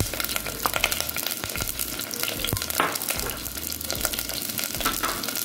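Chopped shallots sizzling in hot coconut oil in a clay pot, a steady hiss with a dense crackle of small pops.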